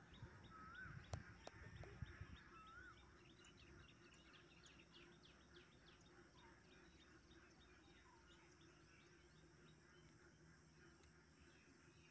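Faint birdsong: quick repeated chirping with a few short rising whistled notes, over a very quiet background. A low rumble in the first two seconds dies away.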